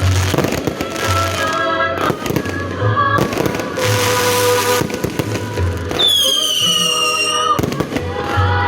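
Fireworks going off, with sharp bangs, crackling and a hissing burst, over loud music with a pulsing bass. About six seconds in, a high whistle falls slowly in pitch for about a second and a half.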